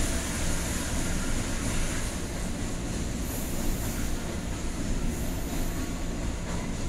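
Container freight train passing through a station without stopping, its loaded flat wagons rolling by on the adjacent track with a steady rumble of wheels on rail.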